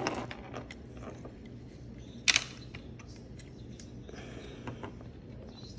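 Small plastic clicks and taps from handling the parts of an opened Xbox One controller, with one sharp click about two seconds in.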